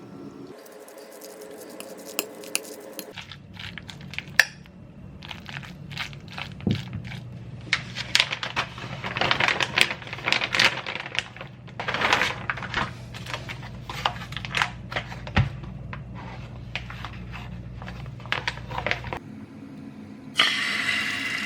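Kitchen preparation sounds: packaging crinkling and tearing, and utensils and dishes clicking and scraping, over a steady low hum. About a second before the end, food goes into a hot pan and starts sizzling.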